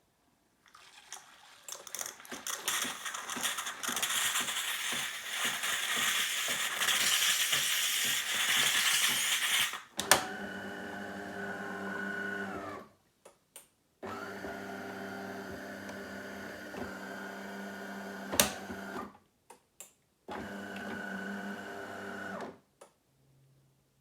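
De'Longhi Magnifica ESAM4200.S bean-to-cup coffee machine making a coffee: its built-in grinder grinds beans with a rattling whirr that builds up over the first few seconds and lasts about nine seconds. Then the pump hums steadily in three stretches, separated by short pauses and a few sharp clicks.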